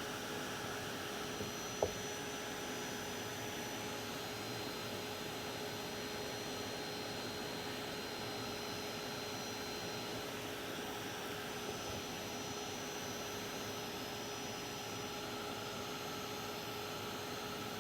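Craft heat tool blowing steadily with a faint hum, drying a layer of crackle paste. A small click about two seconds in.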